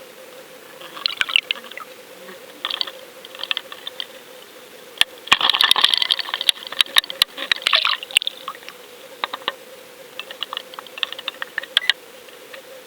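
Water swishing and gurgling in irregular bursts, the biggest a few seconds long around the middle, with scattered sharp clicks and a faint steady hum underneath.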